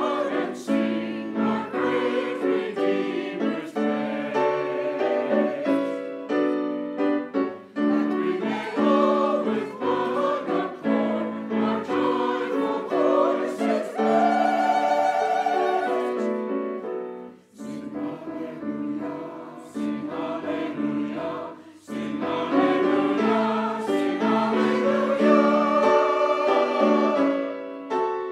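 Church choir singing in parts with piano accompaniment, sustained chords with brief breaks between phrases.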